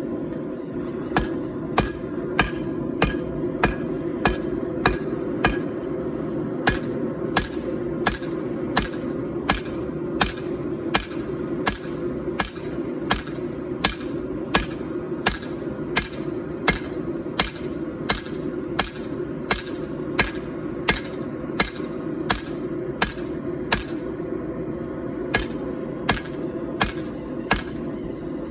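Hand hammer forging hot 4140 carbon steel on an anvil: a long, regular run of blows at about one and a half a second, each ringing briefly, with a short pause near the end. A steady rushing noise runs underneath.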